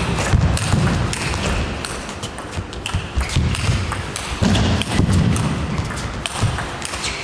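Table tennis rally: the ball clicking sharply off the bats and table in quick alternation, with heavy thuds of the players' feet on the court floor.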